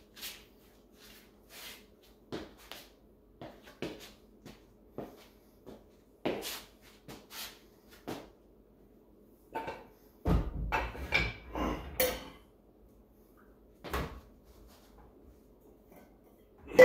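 Scattered light knocks and clicks of handling and footsteps on a floor, with a louder cluster of knocks and rattling about ten seconds in and a sharp knock at the very end.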